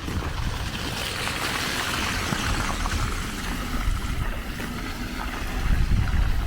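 A car passing on a wet, slushy road, its tyre hiss swelling and then fading, with wind rumbling on the microphone.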